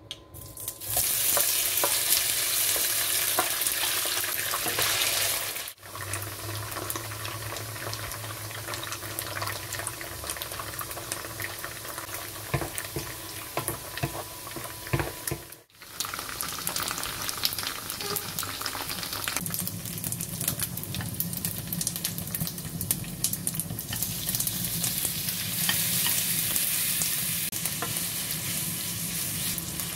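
Cubed tofu hitting hot oil in a frying pan and sizzling loudly, then frying with the scrape and tap of a wooden spatula stirring it. Near the end, minced pork fries alongside it.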